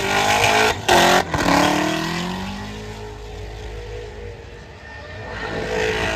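Supercharged Holden VH Commodore burnout car revving hard with its rear tyres spinning. The revs fall away after about a second and a half, then build again near the end.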